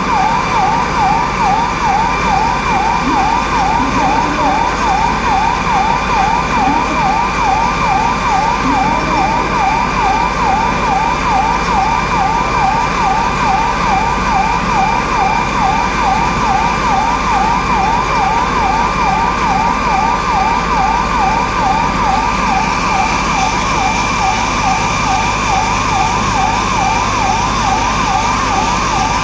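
Electronic emergency siren in a fast yelp pattern: quick rising sweeps that repeat steadily and without a break, over a steady underlying tone.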